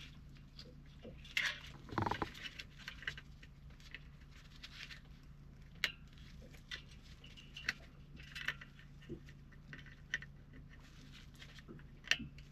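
Scattered small clicks and taps of hands handling diesel heater parts and pushing wire connectors home, over a faint steady low hum.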